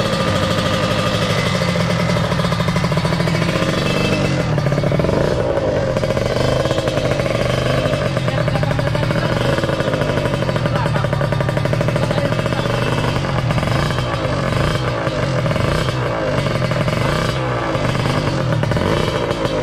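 Kawasaki Ninja R's 150 cc single-cylinder two-stroke engine running on a test run after a major service. From about four seconds in, its pitch rises and falls as the throttle is blipped.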